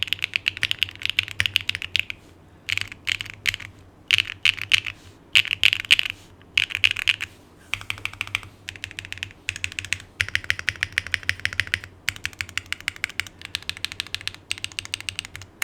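Fast typing on a Neo60CU mechanical keyboard with HMX Sugar Rush switches on an aluminum plate, a dense run of sharp key clacks. It comes in bursts of half a second to a couple of seconds, with brief pauses between them.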